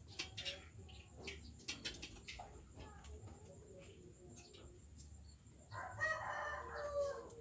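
A rooster crows once near the end, one long call that is the loudest sound here. Before it, faint light clicks and scrapes of a small knife peeling shallots by hand.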